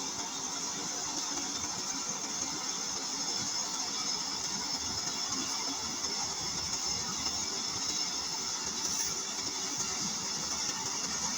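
A rice combine harvester's engine running steadily, with a constant high-pitched hiss over the hum.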